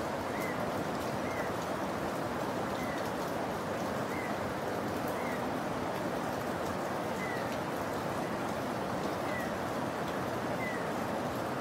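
Steady hiss of rain with a few faint drips, over which a bird repeats a short, slightly falling high note every one to two seconds.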